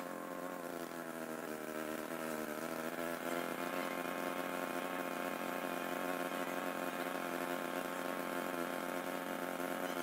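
Lawnmower engine running, its pitch wavering, growing louder about three seconds in.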